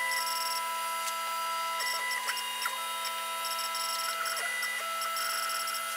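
Creality Ender 6 3D printer running: a steady fan hum with stepper-motor whines at several pitches that switch on and off and change as the axes move.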